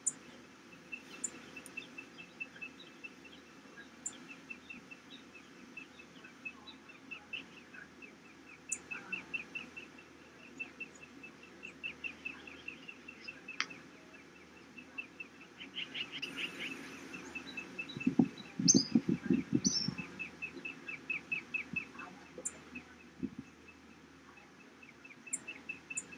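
A small bird repeatedly giving short high chirps, several a second, over a low steady background rush. A burst of loud low thumps about eighteen seconds in is the loudest sound.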